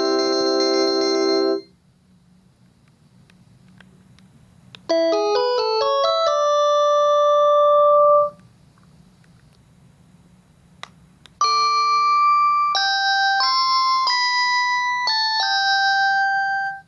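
Panasonic KX-TGD62xE phone ringtones, played one after another. A sustained electronic chord cuts off about a second and a half in. A fast rising run of notes starts about five seconds in and settles onto a held note. About eleven seconds in, another tune of stepped electronic notes begins.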